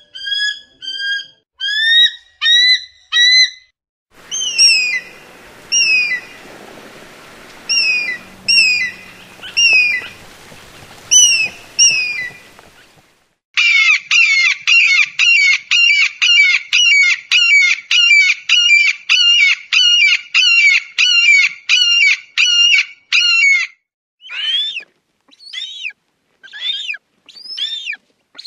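Eagle calls: short, high, clear repeated calls, then calls over a background hiss, then a fast run of about two to three calls a second for some ten seconds, and a few separate calls that slide down in pitch near the end.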